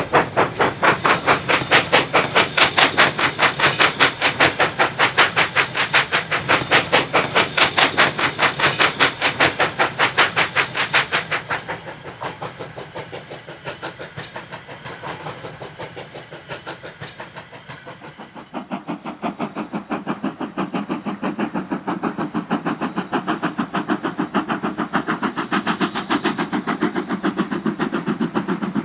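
Single-chimney BR Standard 9F 2-10-0 steam locomotive working a goods train up the bank, its exhaust beating in a rapid, even rhythm. The beats fade as the train pulls away, then come back strongly about two-thirds of the way through.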